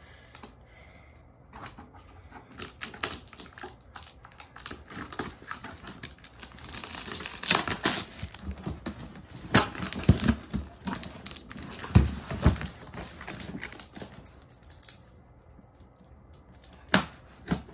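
Packing tape being picked at and peeled off a cardboard box: irregular scratching, crackling and tapping of fingernails on tape and cardboard. A louder stretch of tape tearing away comes around seven to eight seconds in, with a few sharper knocks against the box after it.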